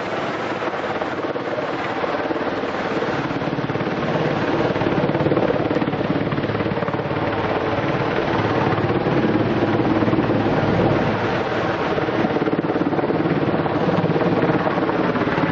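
Helicopter running overhead: a steady, dense engine and rotor drone that swells a little in the middle.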